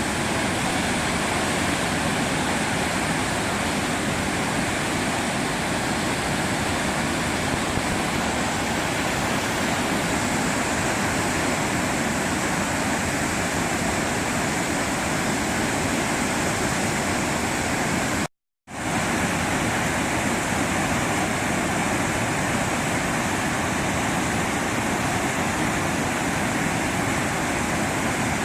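Waterfall's falling water, a steady, even rush that cuts out for a moment about eighteen seconds in.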